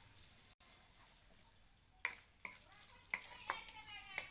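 A few light, sharp clicks and taps of a utensil against an iron kadai, starting about two seconds in after a near-silent stretch, with a short wavering call near the end.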